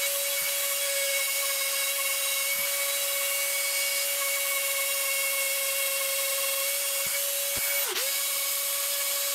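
Handheld rotary tool with a small burr, running at high speed as a steady high-pitched whine while it carves texture into wood. Near the end its pitch dips briefly and comes back up.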